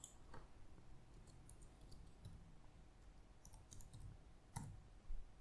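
Faint computer keyboard typing: scattered clusters of soft keystroke clicks, with a slightly louder click near the end.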